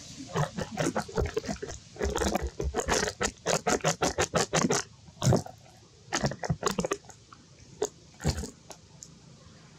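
Macaque biting and chewing rambutan fruit close to the microphone: a dense run of crunches and clicks for about five seconds, then only a few scattered ones.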